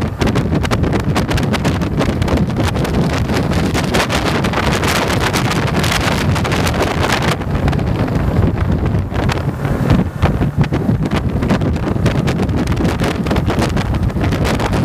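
Wind buffeting the microphone of a handlebar-mounted camera on a moving motorcycle, with the motorcycle's engine running steadily underneath.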